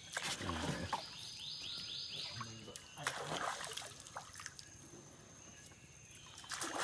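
Water splashing and trickling on a flooded river, with a quick run of high chirps about a second and a half in.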